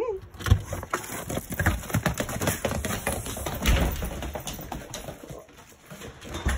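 Several dogs' feet tapping and clicking irregularly on a hardwood floor, one of the dogs walking in winter boots.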